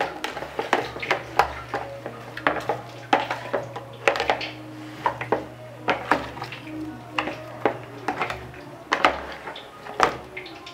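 A slotted spatula knocking and scraping against a plastic bowl as raw chicken pieces are tossed in their seasoning, with irregular clatters several times a second.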